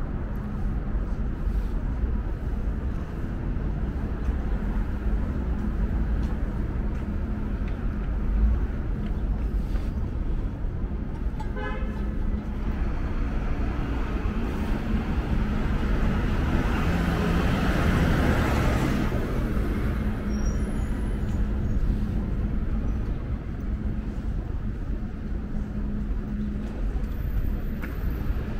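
City street traffic: a steady hum of cars idling and passing. A brief car horn toot sounds about twelve seconds in, and a vehicle passes louder a few seconds later.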